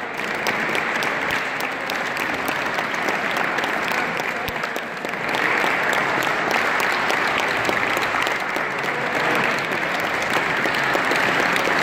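Steady applause from the players and spectators, many hands clapping in a sports hall, getting a little louder about halfway through.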